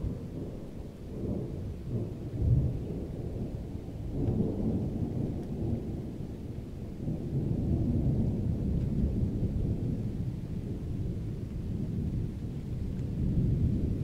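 Distant thunder: a low rolling rumble that swells and eases in waves, with its loudest crack about two and a half seconds in.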